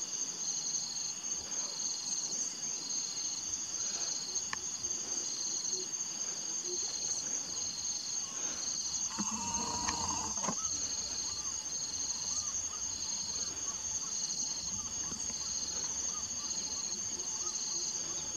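Chorus of insects chirring steadily: one high continuous trill and a lower one pulsing on and off. A brief louder pitched sound about nine seconds in.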